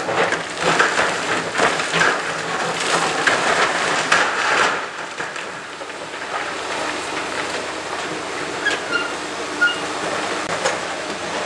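Hydraulic excavators breaking up a stone arch bridge: masonry and rubble crunching and clattering over the running engines. It is busiest in the first five seconds, then settles to a steady engine rumble with occasional knocks.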